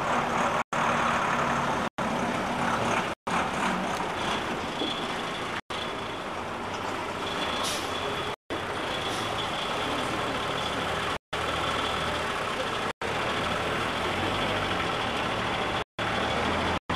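Steady, loud rushing background noise, broken every second or two by brief moments where the sound cuts out completely.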